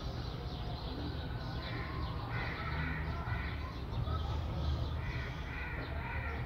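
Birds calling in the background, a series of short repeated calls from about two seconds in, over a low steady hum.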